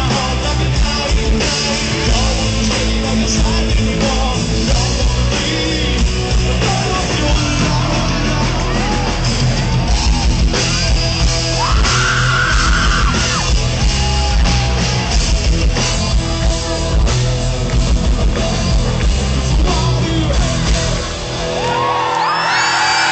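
Rock band playing loud on a festival stage, recorded from within the crowd, with guitars and a yelled or high sung line over the band. Near the end the band stops and the crowd cheers and whoops.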